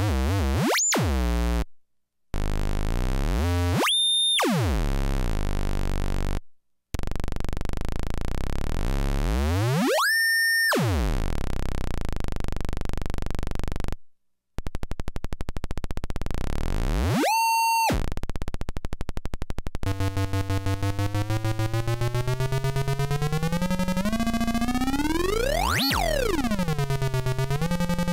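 Hand-built analog noise machine sounding a buzzy synthesizer tone whose pitch repeatedly dives low and sweeps back up high, cutting out briefly three times. In the second half it becomes a rapidly pulsing tone that swoops slowly up and down in pitch.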